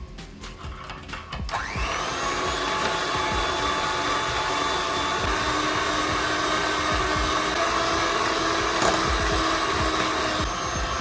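Electric mixer switched on about a second and a half in, speeding up and then running steadily with a high whine, beating eggs, sugar and vanilla until creamy.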